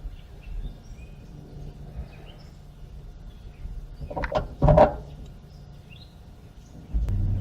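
Birds chirping faintly in the background. About four seconds in come two short, louder sounds, and near the end a steady low hum starts.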